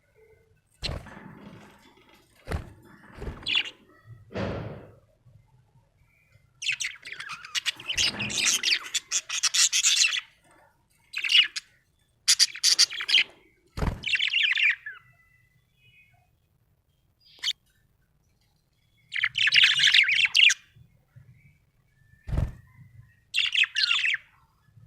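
Budgerigar chirping and chattering in bouts, the longest about three seconds, with a few sharp knocks in between.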